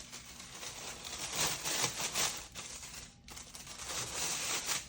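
Packaging rustling and crinkling as a speaker is handled and lifted out of its box of packing peanuts, swelling louder twice.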